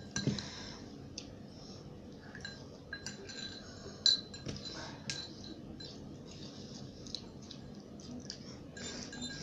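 Scattered light clinks and taps of cutlery against bowls as noodles are eaten, with one sharper clink about four seconds in.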